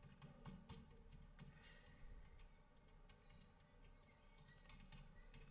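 Near silence with a few faint clicks of a computer being operated, as when advancing presentation slides.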